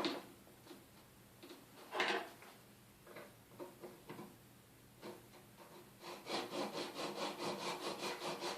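Fine-tooth hand saw cutting a mitre through a PVC capping strip held in a mitre block: a few knocks and handling sounds, then in the last two and a half seconds quick, even saw strokes at about five a second.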